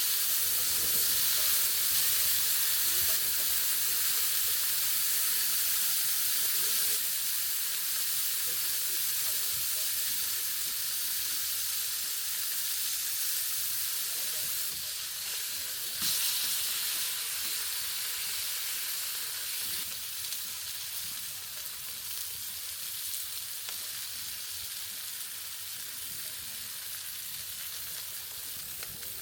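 Bacon and burgers sizzling steadily on a grill, the sizzle slowly easing off, with a brief louder flare about halfway through.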